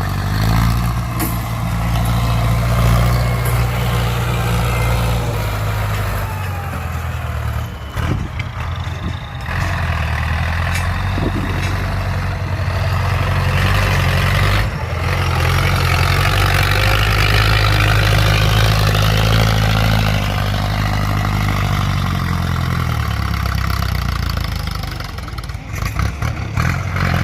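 Ford 6610 tractor's diesel engine working under load as it pushes wet soil. Its steady note sags and picks up again a few times.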